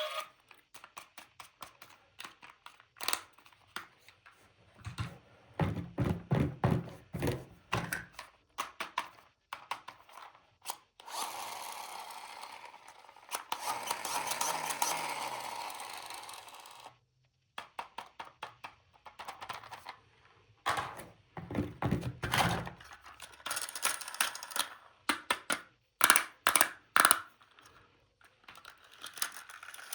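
Toy set being unboxed and handled: a run of small clicks, taps and knocks, with a longer stretch of rustling in the middle.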